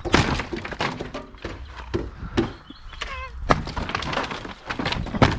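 Wooden wall boards cracking, splintering and being knocked loose in house demolition, in a run of irregular knocks and snaps, with a short wavering squeak about three seconds in.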